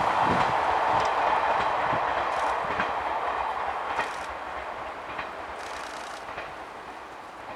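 JR 185 series electric train running away along the track after passing, its rolling noise fading steadily, with a few faint clicks of wheels over rail joints.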